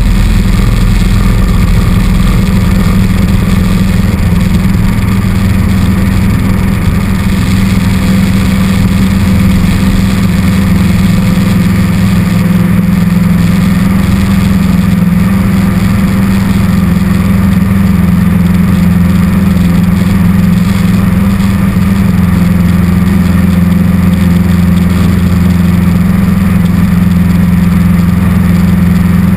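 Cessna 150's four-cylinder Continental O-200 engine and propeller running steadily at takeoff power through the takeoff roll and climb-out.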